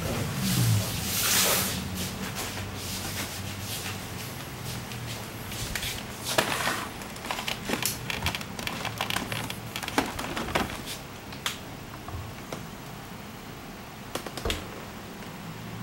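Koden TA1000 step-down transformer switched on and humming steadily, with scattered light clicks and rustles of handling around it.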